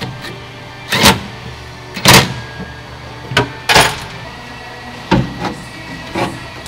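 About six short knocks and clunks, spread irregularly, from hand work on the pickup truck's steel door and window glass, with faint music underneath.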